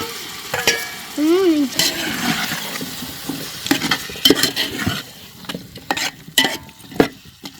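Food sizzling in a cooking pot while a metal spoon stirs it, with a run of sharp knocks and scrapes against the pot in the second half.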